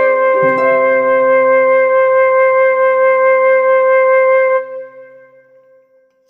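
Background music: a flute melody that settles on one long held note, which stops about four and a half seconds in and dies away over the next second or so.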